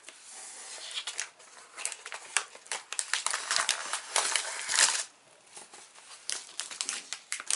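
Plastic snack wrappers crinkling and rustling as a hand rummages through a cardboard box, with many sharp crackles, loudest just before five seconds in, then a few lighter rustles.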